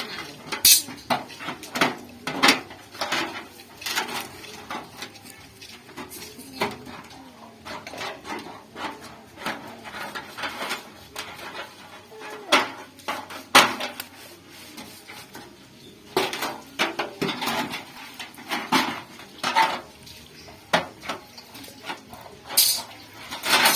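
Irregular metallic knocks and clanks with brief ringing as a sheet-metal pot, cut from an old refrigerator's panels, is worked by hand and its side fitted to the base.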